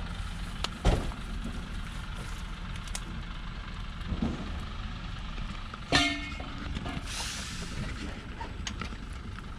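Diesel log truck engine running steadily, with a sharp knock about a second in and a short horn toot about six seconds in, followed by a brief hiss.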